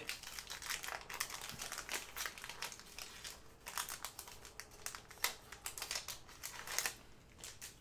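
Trading cards and their plastic packaging or sleeves being handled: a run of light crinkles and small clicks that thin out near the end.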